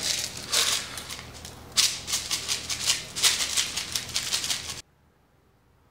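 Coarse salt rattling in a shaker, shaken in quick repeated strokes over a pan of chicken and potatoes; the sound cuts off suddenly about five seconds in.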